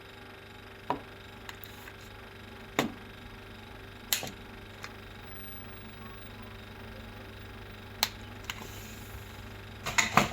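Orsk refrigerator humming steadily at a low, even pitch, broken by about five sharp knocks scattered through.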